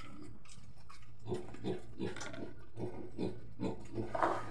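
A sow grunting in short, regular grunts, about three a second, starting a little over a second in.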